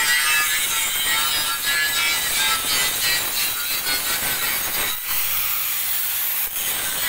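Automatic metal-cutting saw with a bar feeder sawing through iron stock: a steady, high-pitched rasping that dips briefly twice, about five and six and a half seconds in.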